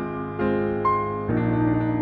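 Slow piano-toned keyboard music: sustained chords that change twice.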